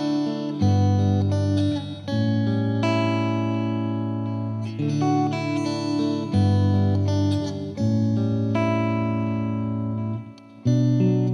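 Background instrumental music with plucked guitar: held notes over a low bass that change every second or two, with a brief drop in level near the end.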